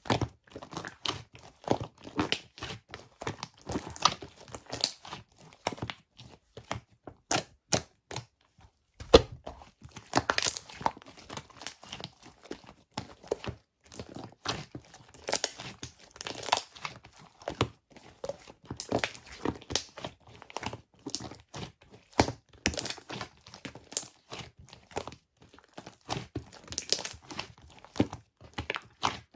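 Crinkly wrapping material being handled close up: a dense, irregular run of crackles and rustles with some tearing, and a sharper knock about nine seconds in.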